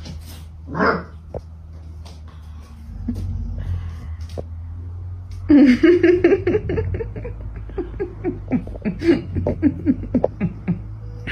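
White husky and puppy vocalizing: a short yip about a second in, then from about halfway a rapid run of short snarling barks and yelps, several a second, as the adult bares its teeth at the nipping puppy. A steady low hum lies underneath.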